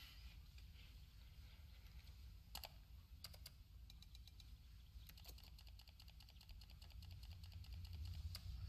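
Near silence with faint light clicks: a few single clicks a few seconds in, then a fast, even run of light clicks from about five seconds in.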